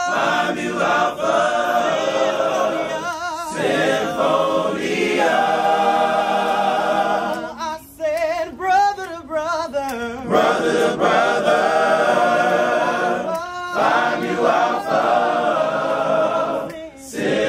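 Men's chorus singing unaccompanied in close harmony, holding long chords. About eight seconds in the held chords break off briefly for a few wavering, shifting notes before the full harmony returns.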